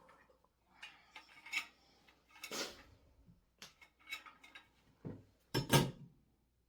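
Irregular clinks, taps and short scrapes of hard tools and fittings being handled against ceramic shower tile, with the loudest a clunk a little before the end.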